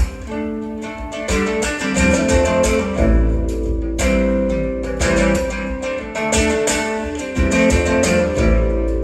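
Instrumental passage of a song: strummed acoustic guitar chords over a deep bass line, played back over hi-fi loudspeakers.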